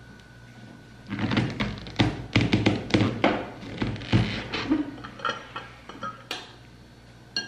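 A spoon knocking and scraping against a glass baking dish and a jar while a spoonful of coconut oil is scooped out and added to the batter. It is a quick run of knocks and scrapes starting about a second in, thinning out after about four seconds, with a couple of sharp clicks near the end.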